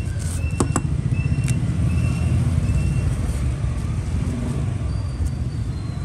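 Steady rumble of road traffic, with a few sharp clicks about half a second to a second and a half in as a lighter and its box are handled.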